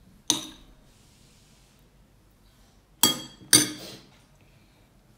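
Three sharp clinks of a metal spoon knocking against glass dishware, one near the start and two about half a second apart a few seconds later.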